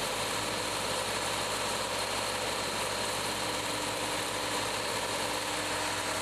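TGI SG110-32 Stumpeater stump grinder running steadily at working speed, its 110 hp Deutz diesel engine driving the 32-inch cutting wheel as it grinds down a stump.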